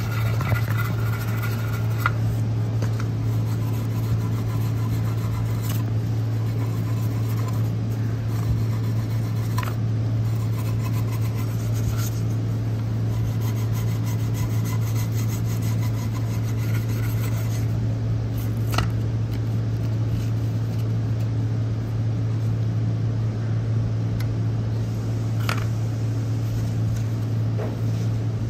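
Old black gasket sealant being scraped off the flange of a steel oil pan: a steady rasping, broken by a few sharp clicks of the tool against the metal. A steady low hum runs underneath.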